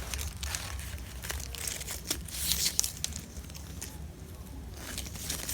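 Stiff embossed glitter ribbon crinkling and rustling as hands fold and weave four strands into a square knot, with scattered small clicks and a busier patch about halfway through.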